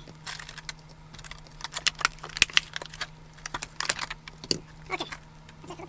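Hard plastic clamshell packaging being handled and pulled apart, giving irregular clicks, crackles and rattles.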